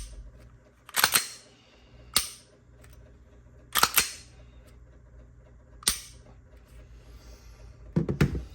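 Glock 45 pistol being dry-fired: a sharp trigger click, then a quick double clack of the slide being racked to reset the trigger, repeated. There are three trigger clicks with two racks between them, then some handling noise near the end.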